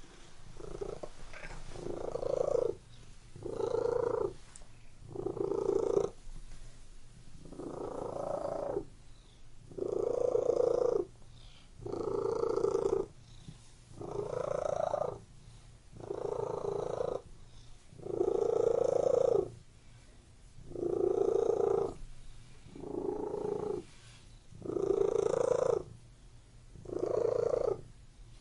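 Domestic cat purring, a low rumble that swells and fades about every two seconds as it breathes in and out.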